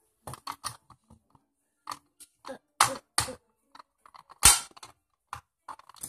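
Irregular clicks and knocks of a red fire-alarm pull station being handled to reset it after it was pulled, with one sharper knock about four and a half seconds in.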